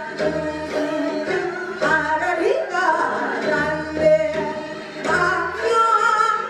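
A woman trained in pansori sings a Korean folk song (minyo) into a microphone, with bending, ornamented held notes. Music accompanies her, with a low beat that returns about every second and a half.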